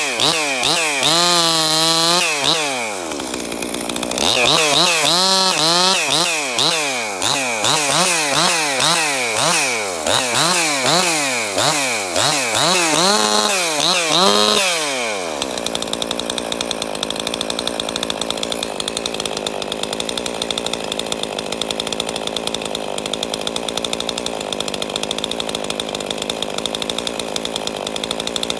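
Ported Husqvarna 262XP two-stroke chainsaw being revved up and down in quick, repeated blips of the throttle. About halfway through it settles into a steady high-speed run. The saw has a hogged-out muffler and a worn piston ring that the owner blames for low compression.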